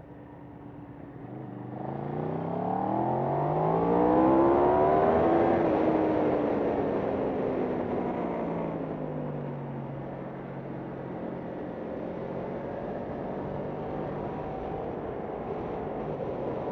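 Racing motorcycle engine revving up hard under acceleration for about four seconds, then its pitch falls slowly as the bike slows and settles to a steadier note near the end.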